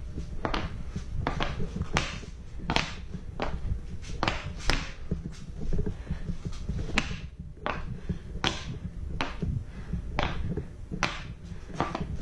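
Hockey puck being flipped up and caught on a stick blade: repeated sharp taps and knocks, irregular, roughly one or two a second.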